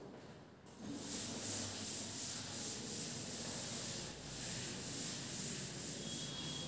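Chalkboard duster wiped across a blackboard, erasing chalk writing: steady scratchy rubbing that starts about a second in.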